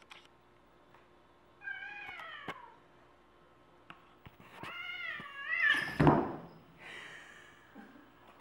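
Cats in a standoff: a falling meow, then a longer wavering yowl that ends in a loud sudden burst, a spit or swat, about six seconds in, followed by a short hiss.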